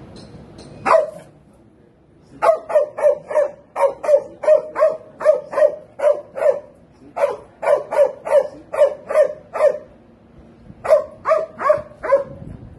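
Police drug-detection dog barking: a single bark about a second in, then fast runs of about three barks a second, with two short breaks between the runs.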